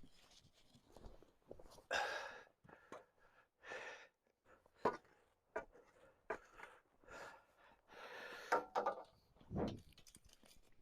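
Faint, scattered work-handling noises: a few short scrapes or rustles, several sharp knocks, and a dull thump near the end.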